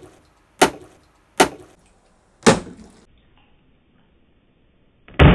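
Plastic water bottle knocking on a wooden tabletop: four sharp knocks over the first two and a half seconds, then after a quiet gap a heavier thud about five seconds in as the flipped bottle comes down on the table.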